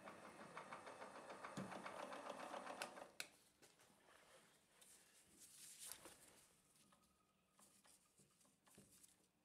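Optimum mill's spindle turning at low range and slow speed, driving a spiral tap into a tapping hole: a faint, fast, even whirring chatter that stops with a click about three seconds in, leaving only a few faint clicks.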